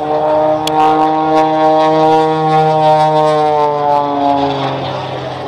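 Boeing Stearman biplane's radial engine and propeller droning steadily during an aerobatic display, the pitch dropping and the sound fading over the last second or two.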